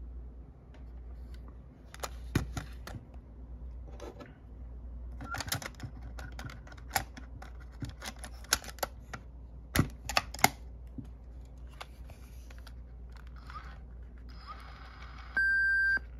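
Plastic and metal clicks and clacks from a Sony WM-EX909 Walkman cassette player being handled: a cassette seated in its compartment and the door snapped shut, followed by buttons pressed. A short steady beep sounds near the end.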